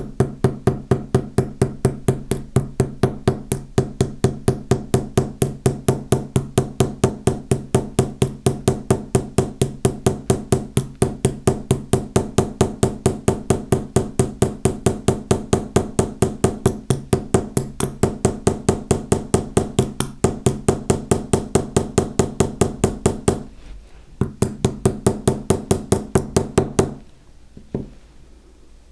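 Small jewellery hammer tapping steadily on the end of a copper wire rivet through a drilled stone pebble, spreading the rivet's nail head: about three to four light strikes a second, each with a short ring. The tapping breaks off briefly near the end, starts again for a few seconds, then stops.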